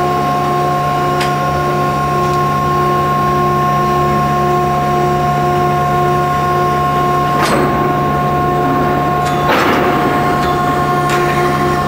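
Calbrandt low-dog railcar mover running in progressor mode, pushing a string of tank cars continuously at a slow crawl. It makes a steady mechanical whine with a regular pulse about twice a second, and two brief hissing bursts about two-thirds of the way through.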